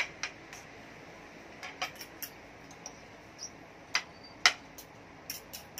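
Metal serving fork and spoon clinking and scraping against a large metal pan and plates while noodles are dished out. A scattering of short light clinks, the loudest about four and a half seconds in.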